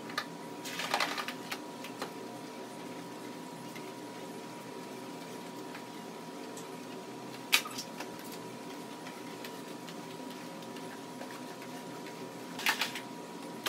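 Long-handled scrub brush working a wet stone-tiled floor, its bristles scrubbing back and forth over a steady hum. A few sharper scrapes or knocks come about a second in, around the middle, and near the end.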